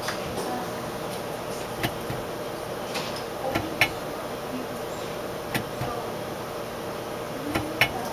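Automated switch tester running with a steady hum, and a handful of sharp, irregular clicks as switches are actuated, the loudest about four seconds in and near the end.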